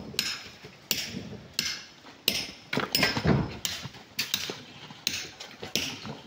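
Repeated hand blows of a metal tool on rock, as when cutting stone: about two strikes a second, unevenly spaced, each with a short metallic ring.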